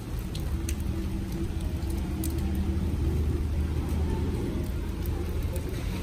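Rain falling on wet paving, with scattered drops ticking on an umbrella overhead, over a steady low rumble.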